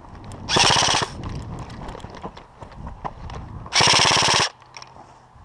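Airsoft rifle firing two short full-auto bursts, the second about three seconds after the first, each a rapid rattle of shots. Faint scattered clicks in between.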